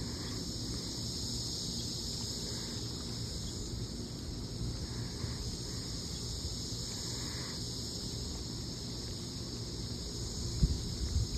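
Steady outdoor ambience: a constant high insect chorus over a low rumble of wind on the microphone, with a couple of low thumps near the end.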